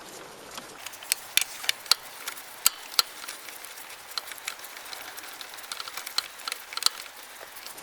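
Irregular sharp metallic clicks and clinks of hand tools and bolts as a bolt is undone on a scooter's drive pulley housing.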